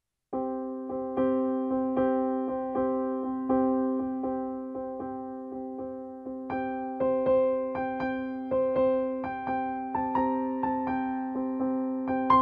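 Background piano music that starts a moment in, notes struck at an even pace over a held low note.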